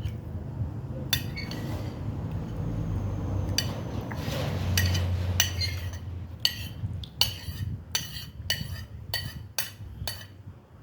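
Spoon and fork clinking and scraping on a plate while eating, with a quick run of clinks about three a second in the second half.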